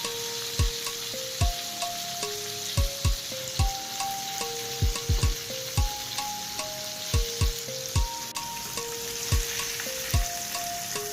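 Red bream frying in hot oil with a steady sizzle, under background music with a held-note melody and a regular kick drum beat about twice a second, the drum being the loudest thing heard.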